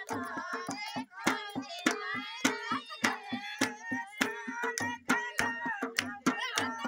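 Women singing a Bundelkhandi folk song (dadra), accompanied by a dholak and hand clapping, with sharp claps and drum strokes in a quick, steady beat.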